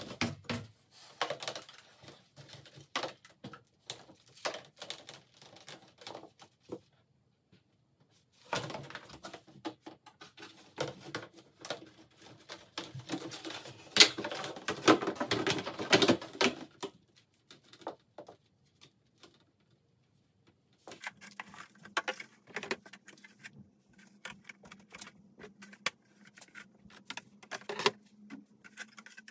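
Hard plastic clicking, knocking and rattling as a storage tote and its snap-on lid are handled, busiest and loudest about halfway through. Later come more scattered clicks over a faint steady hum.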